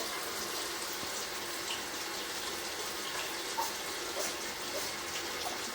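Steady rushing background noise with a few faint, soft sounds.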